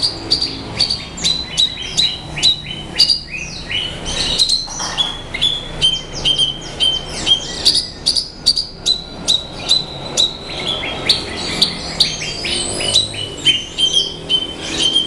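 Javan bush lark (branjangan) singing a continuous, varied song: an unbroken run of short high chirps, two or three a second, that keep changing in pitch.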